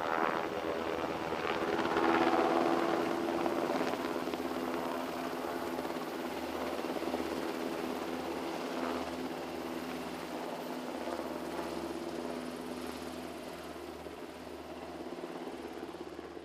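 A steady engine drone, loudest about two seconds in and then slowly fading.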